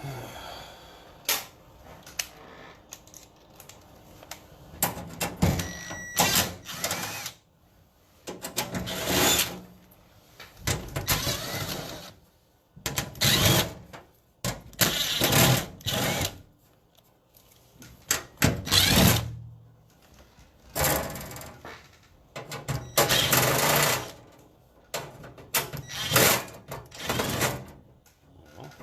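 A small handheld power tool run in short, irregular bursts of about a second each, a dozen or so times, with quiet gaps between.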